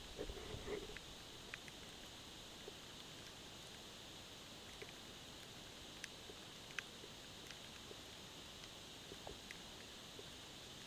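Faint underwater sound picked up by a submerged camera: a steady hiss with scattered sharp clicks and ticks, and a few muffled knocks in the first second.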